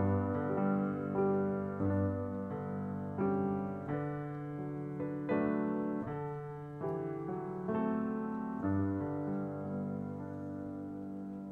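Piano playing slow, sustained chords, a new chord struck every second or so, dying away near the end.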